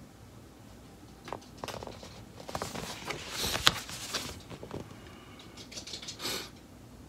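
Rustling and crackling of a large printed paper map sheet being picked up and handled, with a few sharp taps. The loudest crackle comes about three and a half seconds in, and a shorter rustle follows near the end.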